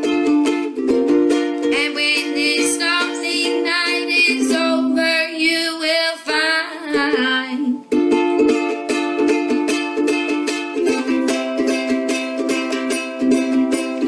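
Ukulele strummed in steady rhythmic chords. A wordless voice sings a wavering melody over it from about two seconds in until about eight seconds, when the strumming picks back up fully.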